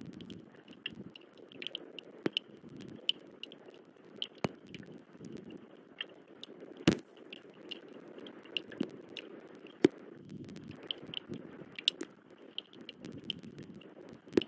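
Rain dripping and tapping around the nest cam microphone: irregular sharp drops and ticks over a soft, patchy rustle, with a couple of louder drops about 7 and 10 seconds in.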